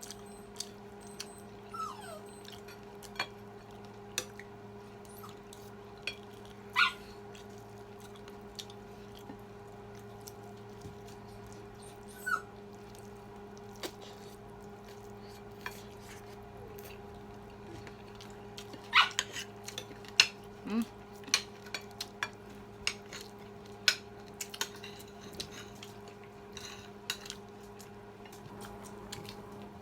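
Cutlery clinking against plates during a meal, many scattered light clicks over a steady electrical hum. A few louder, short sharp sounds stand out about 7 seconds in and again around 19 to 20 seconds in.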